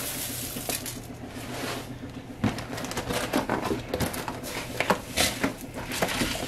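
Dry crisped rice cereal pouring from the box into a foil pan of marshmallow mix, then, from about two seconds in, a wooden spatula stirring it in: crunching cereal and crinkling scrapes against the thin aluminium pan.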